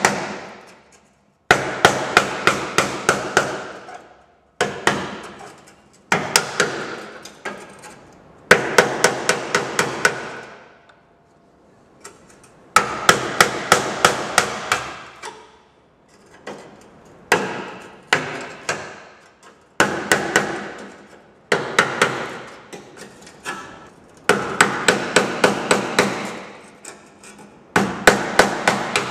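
Hammer driving a sharpened gasket scraper, used as a chisel, through the rusted outer sheet-metal panel of an HK Holden front fender. The blows come in short runs of about three or four a second, with pauses between the runs, and the panel rings after each run.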